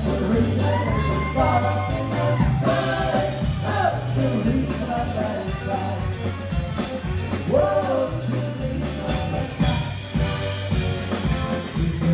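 Song with a sung lead vocal over guitar, bass and a steady beat.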